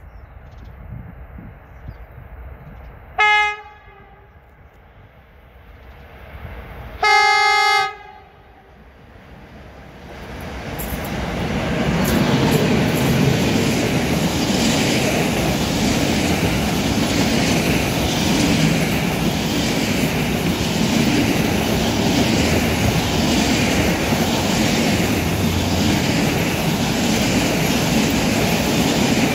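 A class 40 electric locomotive's horn sounds twice, a short blast and then a longer one about four seconds later, as a freight train approaches. The train then passes close by: the locomotive and a long string of container flat wagons, with steady wheel-on-rail noise and rhythmic clacking of the wheels.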